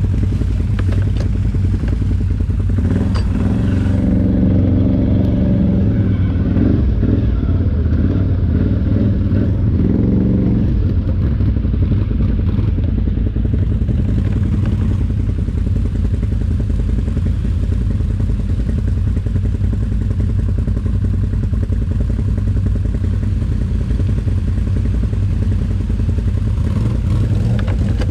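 ATV engine running while being ridden, a steady low drone with rattling. From about three seconds in to about ten seconds it holds a stronger, higher note under more throttle, then settles back.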